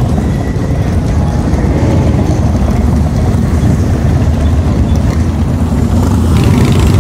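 Several cruiser motorcycles riding slowly past one after another, their engines making a steady deep rumble.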